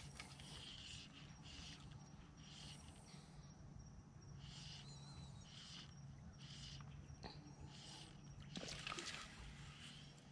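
Faint outdoor ambience by a pond, with short high animal chirps repeating about once or twice a second. A brief louder rustle comes near the end.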